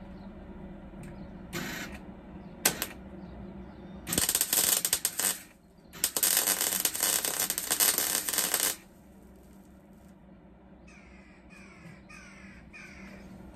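MIG welder laying a plug weld through a hole in a steel panel: two short crackling blips, then two longer runs of steady, dense crackle and sizzle, about one and two and a half seconds long. Near the end a bird calls several times, each call falling in pitch.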